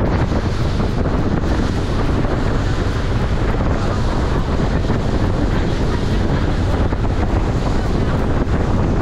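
Steady, heavy wind buffeting the microphone on a fast-moving boat, over the rush and splash of water along the hull.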